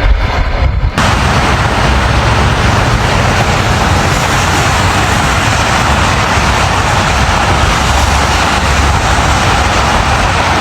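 Strong wind blowing steadily and buffeting the microphone, a loud even rushing that starts abruptly about a second in.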